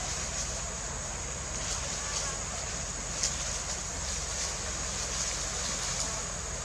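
Steady outdoor background noise, an even hiss with a thin, high, steady band above it and a few faint clicks.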